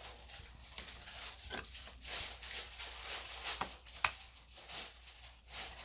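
Sticky butter slime being handled and pulled off the hands, giving soft irregular sticky crackles and squelches, with a sharp click about four seconds in.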